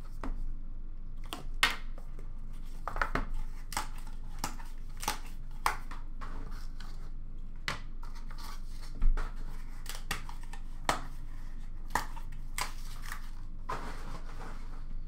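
Hands opening a sealed trading card box: the wrapper and cardboard tear and crinkle, with scattered clicks and taps of cardboard and plastic and a sharper knock about nine seconds in.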